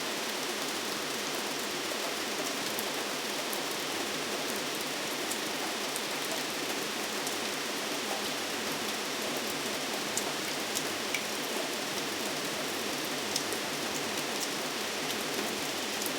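Steady rainfall: an even hiss of rain with scattered sharp ticks of single drops striking a surface.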